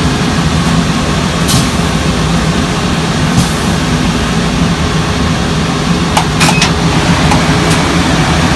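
Steady low drone of laundry machinery, with two short high hisses in the first few seconds and a few sharp clicks later on.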